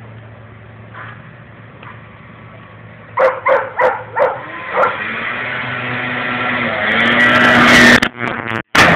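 Snowmobile engine approaching and growing steadily louder, then passing close near the end, where the sound briefly drops out. A few short, sharp sounds come about three to five seconds in.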